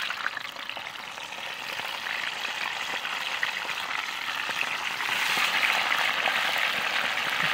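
Fish pieces frying in hot oil in a skillet: a sizzle that starts suddenly as the pieces go in and grows louder over the first few seconds, then holds steady.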